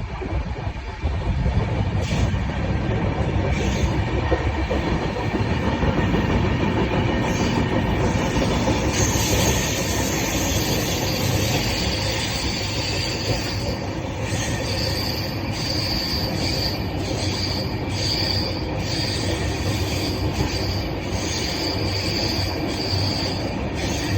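Indian Railways train running on the track with a steady rumble. A thin, high wheel squeal comes in about nine seconds in and keeps sounding on and off through the second half.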